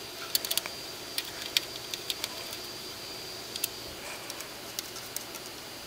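Small metal elevated screws (standoffs) being turned in by hand on a Cisco 800 series router motherboard: scattered light metallic clicks and ticks at irregular intervals.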